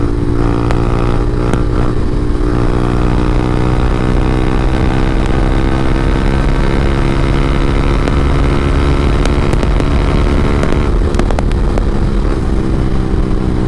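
Yamaha R15M's 155 cc single-cylinder engine through an SC Project full-system exhaust, pulling steadily at highway speed, its pitch rising slowly as the bike accelerates. About eleven seconds in the note softens as the throttle eases.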